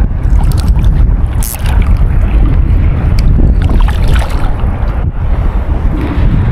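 Wind buffeting the microphone at sea: a loud, steady low rumble, with a couple of brief hisses.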